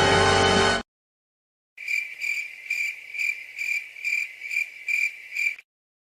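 A music clip that cuts off suddenly under a second in, then, after a short gap, the cricket-chirping sound effect used for an awkward silence: a cricket chirping steadily, about three chirps a second, for nearly four seconds.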